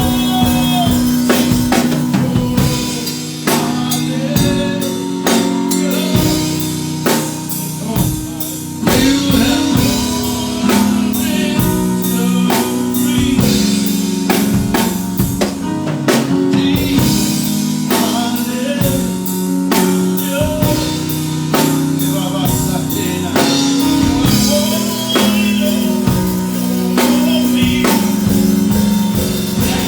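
Live worship band playing a song: drum kit with kick and snare driving a steady beat under sustained chords.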